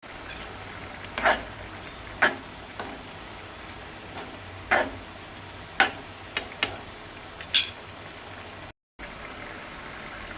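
A metal spoon clinks and knocks against a kadhai about eight times, irregularly, while thick curry is stirred in it, over a steady faint hiss.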